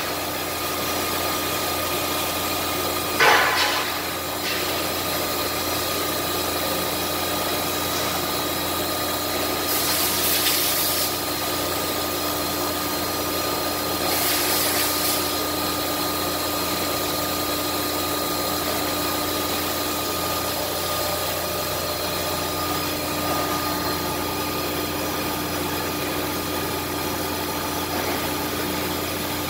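Thermwood CNC router running with a steady machine hum and a held tone. A sharp clack comes about three seconds in, and two short hisses follow near the middle.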